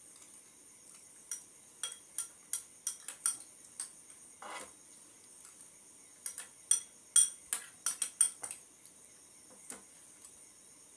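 Metal spoons clinking and scraping against small glass bowls of vermicelli pudding. The sharp clinks come in two quick runs, with a softer, longer sound between them.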